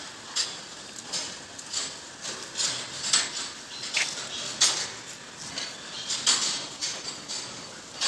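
Dairy cows feeding at a steel headlock feed barrier: green fodder tearing and crunching, mixed with clacks from the metal gates. The short, sharp sounds come about twice a second.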